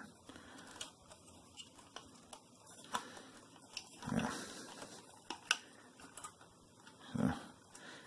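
Faint plastic clicks and rattles of a wire-harness connector being squeezed at its push tab and worked loose inside an LED monitor's housing. Two short low grunts of effort come about four seconds in and again near the end.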